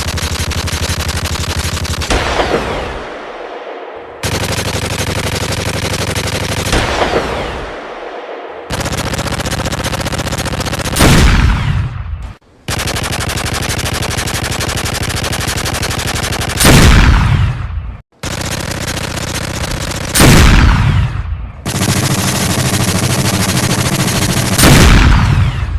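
Synthetic punch sound effect: barrages of very rapid-fire hits, about six in a row, each lasting a few seconds and ending in a heavy impact with a falling whoosh.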